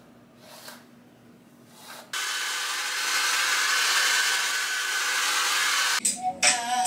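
Handheld hair dryer blowing, a steady rush of air with a thin whine in it; it switches on suddenly about two seconds in and cuts off abruptly about a second before the end.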